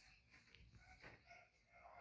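Near silence: room tone with a few faint small ticks and rustles.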